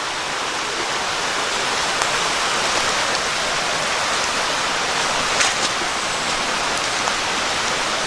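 Steady rush of creek water flowing over rocks, with a couple of faint clicks about halfway through.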